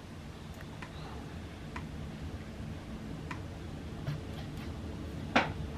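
Computer mouse clicks, scattered and separate: several faint ones and a louder, sharper click near the end, over a low steady hum.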